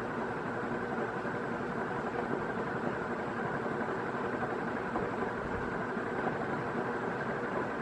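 Northwest Envirofan Heavy Duty Gold Line industrial ceiling fan running steadily on its low speed through a solid-state control: an even motor hum with the rush of moving air, unchanging throughout.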